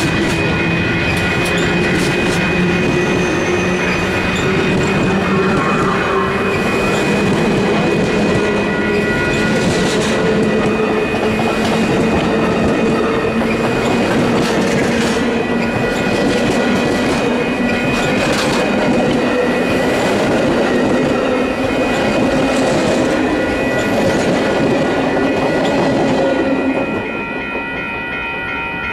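Amtrak passenger cars rolling past close by at speed: a steady rush of steel wheels on rail with scattered clickety-clack over the rail joints. The noise drops off suddenly near the end as the last car clears.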